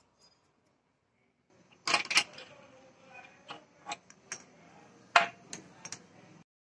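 Metal tools and engine parts being handled: a string of sharp metallic clinks and knocks, roughly eight of them a second or so apart, the loudest a double clink about two seconds in. The first second and a half is near silence.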